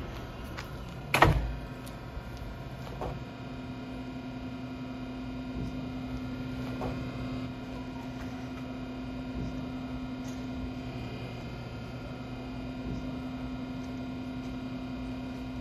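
Siemens Vectron electric locomotive standing with its equipment humming: a steady low hum, joined about three seconds in by a steady higher tone. One sharp knock about a second in.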